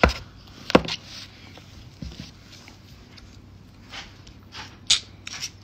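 A few sharp clicks and soft smacking sounds: a baby sucking at the spout of a squeeze food pouch.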